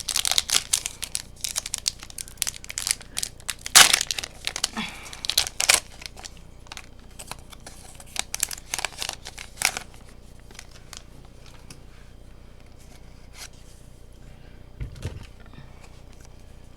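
Foil wrapper of a Pokémon trading-card booster pack being torn open and crinkled: a dense run of crackles and rips, thinning out and stopping about ten seconds in.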